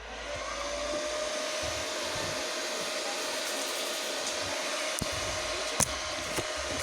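Cooling fan of a REAIM MMA 120 IGBT inverter welding machine, just switched on: it spins up over about the first second, then runs with a steady whoosh and a faint hum. A few light clicks near the end.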